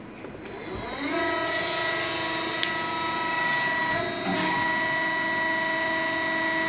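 An electric motor on a CNC press brake winds up over about a second into a steady machine whine of several pitched tones, wavering briefly about four seconds in.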